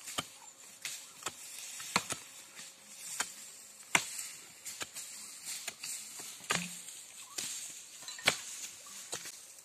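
Machete blows chopping into wood: about a dozen sharp strikes at an uneven pace, roughly one a second.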